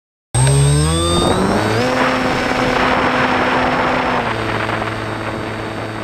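Electric outrunner motor and propeller of a home-made RC airplane, heard from on board: a whine that rises in pitch over the first second or two, holds steady, then settles at a lower pitch a little past the middle, with a rush of air beneath it.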